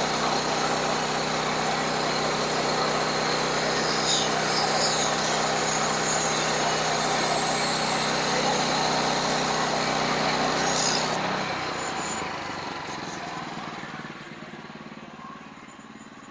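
Sawmill's small petrol engine running steadily, then shut off about eleven seconds in and winding down to a stop over a few seconds.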